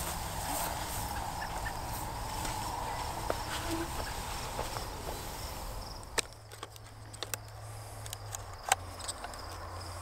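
Outdoor ambience with insects chirring; about six seconds in, a few sharp plastic clicks and knocks as a strap-mounted trail camera is handled and its case opened.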